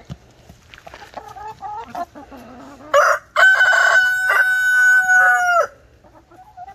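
Chickens clucking softly as they feed, then a rooster crows once, loudly, about three seconds in: a short opening burst followed by a long held final note of over two seconds that cuts off sharply.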